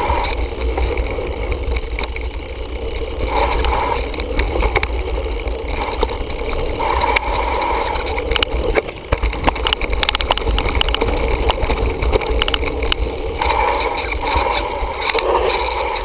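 Mountain bike rattling and jolting down a rough dirt trail, with frequent knocks and clatter from the bike and tyres running over soil and leaves, and a steady rumble of wind buffeting the camera microphone.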